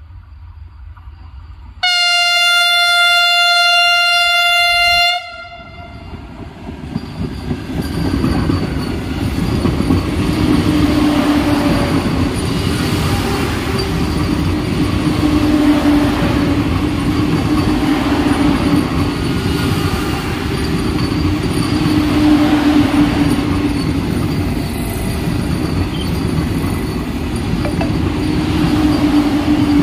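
Vande Bharat electric train set sounding one steady horn blast of about three seconds as it approaches, then passing close by with a loud, steady rumble of wheels on the rails.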